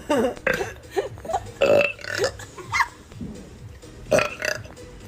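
A person burping several times in a row: a string of short, loud burps, the loudest near two seconds in and another just after four seconds.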